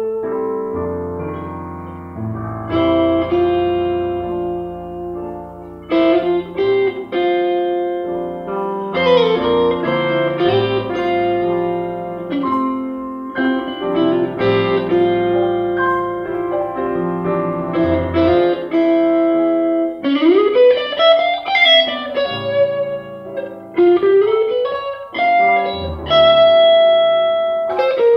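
Grand piano and archtop electric guitar playing a slow jazz standard together, with sustained chords and melody notes and a quick run up and back down about two-thirds of the way through.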